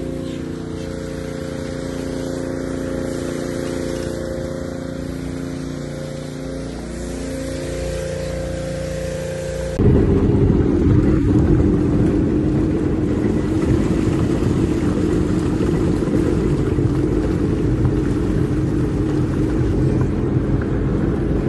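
Mercury outboard motor running at low speed, a steady engine hum. About ten seconds in it cuts to louder, rougher boat-engine noise with a hiss of water and wind.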